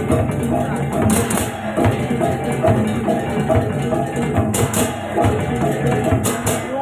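Balinese baleganjur gamelan playing: clashing cengceng cymbals over drums and ringing gong tones, with louder cymbal crashes about a second in, midway and near the end.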